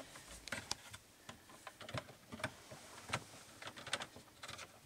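Faint, irregular small clicks and rustles of wire handling: a plastic wire nut being twisted off and two spliced electrical wires pulled apart by hand.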